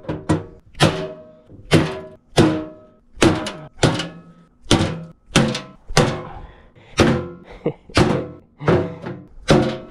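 Repeated heavy blows of a long-handled striking tool on a small steel safe, about a dozen strikes at a steady pace. Each blow lands with a thunk and a short metallic ring from the safe's body as it is beaten to force it open.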